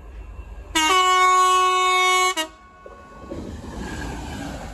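Freightliner diesel locomotive sounding one long, loud blast on its horn, a single steady note that cuts off sharply after about a second and a half. The locomotive's engine and wheels then rush past close by.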